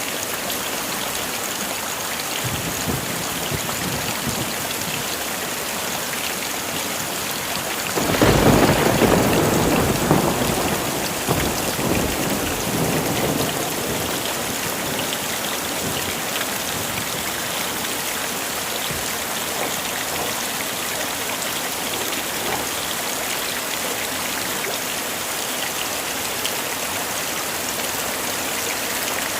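Heavy rain falling steadily as a dense even hiss. About eight seconds in, a thunderclap breaks out suddenly and rumbles away over several seconds.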